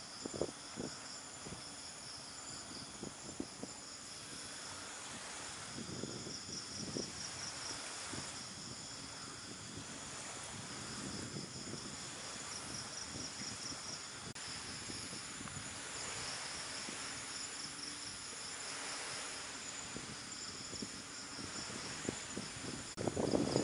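Night insects chirping: a pulsing high trill that comes and goes in stretches of a few seconds over a steady high-pitched buzz.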